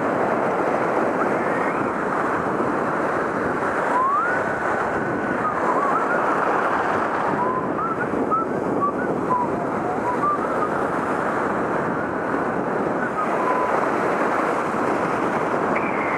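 Ocean surf breaking and washing over a rocky shoreline, a steady rushing noise with wind buffeting the microphone. A few faint, short whistle-like notes come and go from about four seconds in.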